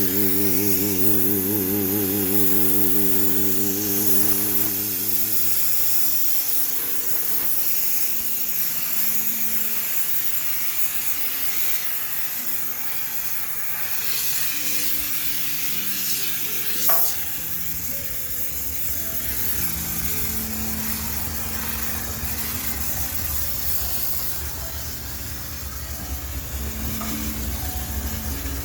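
High-pressure steam cleaner jetting with a steady hiss while sterilising a washing machine, over background music. A sharp click comes about 17 seconds in, after which a low hum sets in.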